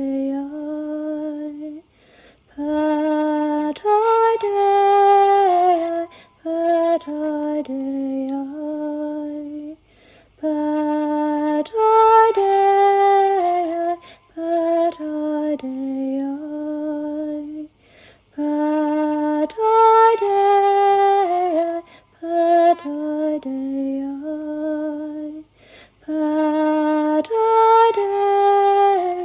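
A woman singing unaccompanied, a slow, lullaby-like chant in short phrases separated by brief pauses. The same melodic phrase comes round about every eight seconds.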